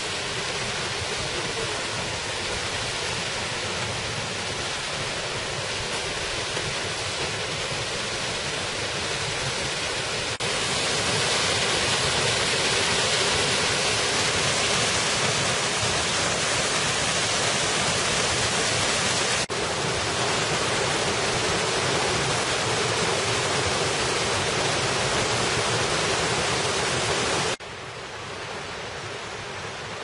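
Mountain stream rushing over granite cascades, a steady hiss of white water. It gets louder abruptly about ten seconds in and drops abruptly near the end.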